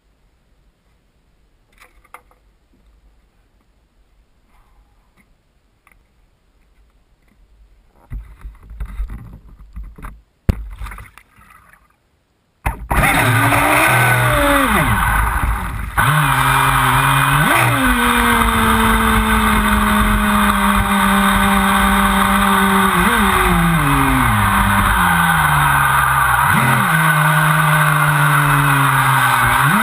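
ProBoat Voracity RC speedboat's brushless electric motor and hull running flat out across the water, picked up from on board with heavy spray hiss; it starts about halfway through after some faint handling knocks, and its pitch rises and falls several times with the throttle.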